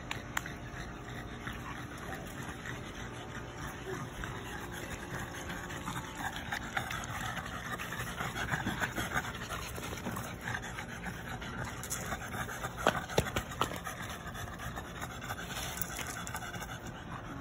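French bulldogs panting as they play, a continuous rough breathing with a few short sharper sounds about thirteen seconds in.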